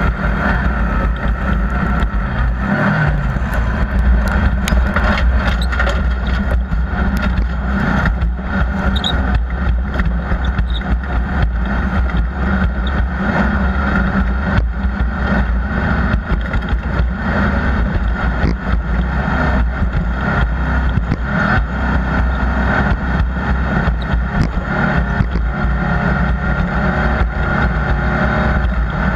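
Off-road race vehicle engine running continuously under load, with many short clicks and rattles over it.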